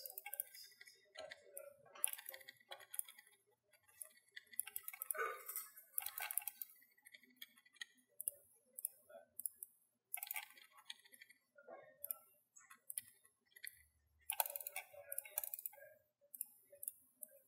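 Quiet, irregular clicking of a computer mouse and keyboard, short scattered clicks with no steady rhythm.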